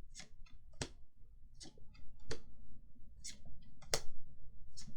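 Magic: The Gathering trading cards being handled and flicked through, giving a string of irregular sharp card snaps and clicks.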